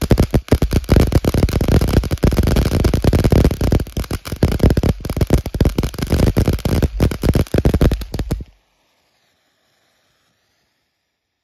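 Black Cat 'Little Big Show' fountain firework spraying sparks: a loud hiss packed with fast crackles. The sound cuts off suddenly about three-quarters of the way through.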